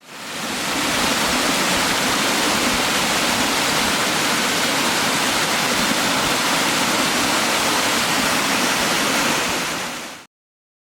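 Waterfall: a steady rush of falling water that fades in over about a second and fades out near the end.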